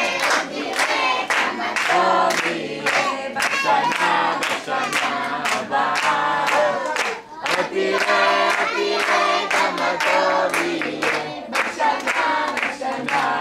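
A group of young children singing a song together in chorus, with a steady beat behind them.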